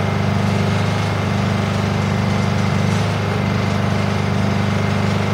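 Honda EU2000 inverter generator's small four-stroke engine running steadily at its lower, not-yet-full-throttle speed, with no heavy load on it.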